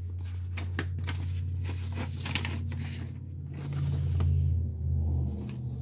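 A printed paper sheet rustling and crackling irregularly as it is handled and held up, over a steady low hum that swells for about a second past the middle.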